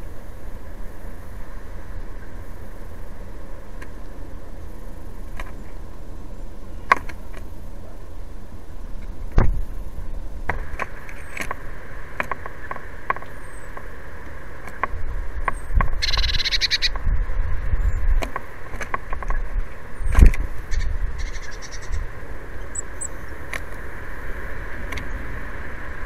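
Steady low rumble on a feeder camera's microphone, broken by sharp knocks and taps as small birds land on and peck at the plastic seed trays. There is a brief rasping burst about sixteen seconds in, and a few faint high chirps.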